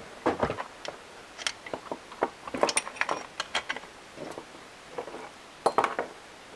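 A chainsaw's steel chain and guide bar rattling and clinking in short, irregular clicks as they are pulled off the saw.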